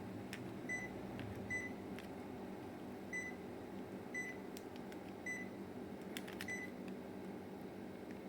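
Panasonic CS-XN5RKJ split air conditioner's indoor unit giving six short high beeps over its steady running hum, with faint sharp clicks in between. The beeps are the unit acknowledging remote-control commands.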